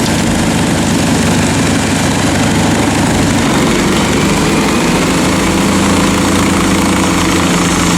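Large engine-driven wood chipper running with a steady, loud drone, engine note and machine noise together.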